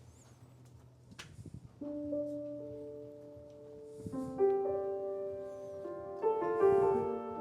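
Solo piano intro of a recorded song played back over TAD Compact Evolution One TX loudspeakers. After a brief quiet, slow chords are struck about two seconds in, then again near four and six seconds, each left to ring and fade.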